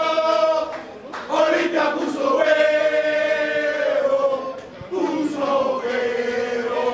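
A group of men singing a football victory chant together at full voice, in long held phrases with short breaks between them.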